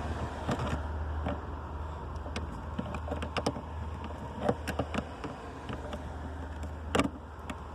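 Irregular metallic clicks and taps of a hand tool working the negative battery terminal clamp loose, over a steady low hum.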